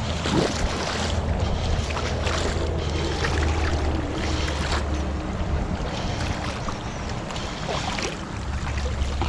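Boots wading, kicking and stomping through a shallow stream, the water splashing and churning irregularly, over a low steady rumble: the stomping that drives fish toward a held scoop net.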